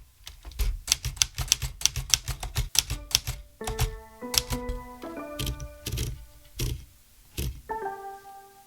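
Hermes Baby portable typewriter keys striking in quick succession, several clicks a second, thinning out later. Background music with stepping notes comes in about halfway through and ends on a held chord.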